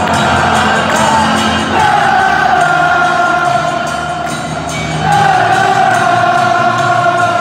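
Stadium crowd of football fans singing together in long, held notes over music, with the general roar of a full stand behind. The melody changes note about two seconds in and again about five seconds in.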